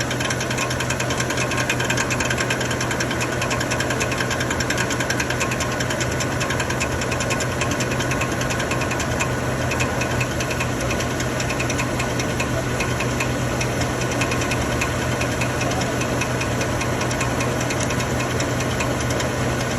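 2013 Chevrolet Silverado 1500's 5.3-litre V8 idling with a steady, fast knocking rattle that sounds like a cracked flexplate but comes from the starter: its drive (Bendix) sleeve is rubbing against the flexplate, so the starter needs replacing.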